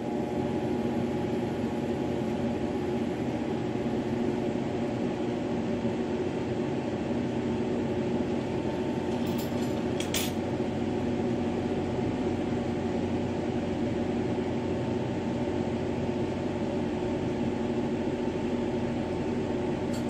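Steady hum and rush of a lit glass lampworking bench torch and its bench equipment running without a break. A faint brief click comes about ten seconds in.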